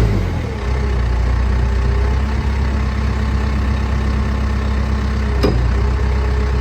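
The 95-horsepower turbo diesel of a Case 580 Super M backhoe loader settles from a brief rev at the start into a steady low running note. A single sharp click comes about five and a half seconds in.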